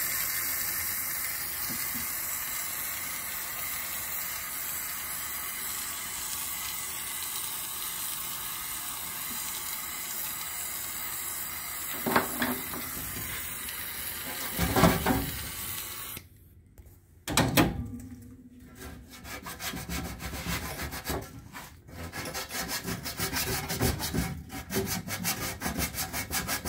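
Gas torch flame hissing steadily as it heats a refrigerator freezer's evaporator plate, cutting off after about sixteen seconds. Then come rapid rubbing strokes of a hand tool scrubbing the evaporator around a knife puncture to clean it for soldering.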